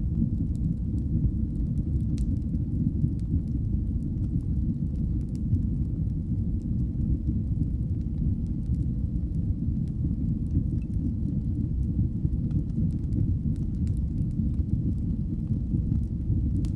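Fire in a fireplace burning with a steady low rumble of flames and scattered faint crackles and pops.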